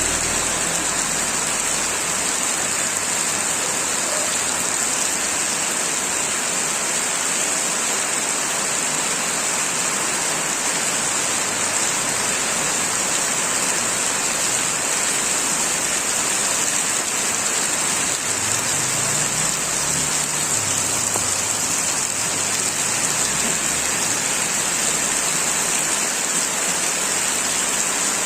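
Heavy rain falling steadily and pattering on surfaces, an even hiss with no let-up, and a faint low rumble about two-thirds of the way through.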